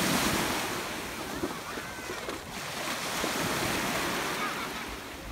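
Small waves breaking and washing in the shallows of a sandy beach: a steady rush of surf that swells a little in the middle.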